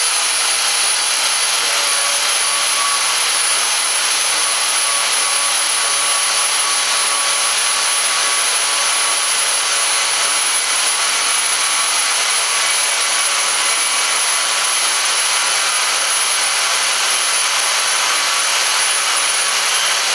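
Portable band saw with a 14-teeth-per-inch blade cutting through rectangular steel tubing under the saw's own weight: a steady motor and blade noise with a thin high whine that holds unchanged.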